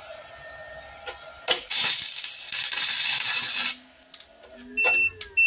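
Handheld 120-volt stick welder striking an arc about a second and a half in and crackling for about two seconds while drawing roughly 1,500 watts from a portable power station, then stopping. About a second later the power station starts beeping at a steady rate as it shuts off under the overload.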